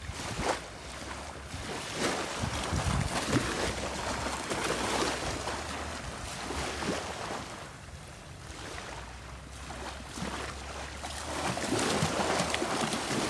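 Small waves lapping and washing up onto a shelly beach, surging and easing every few seconds, with wind rumbling on the microphone.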